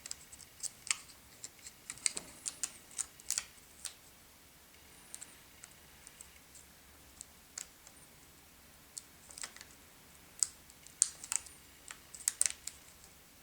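Scattered small, sharp clicks and taps, irregular and sometimes in quick little clusters, as fingers handle a laptop display ribbon cable and work its connector into the socket on the back of a replacement LCD panel.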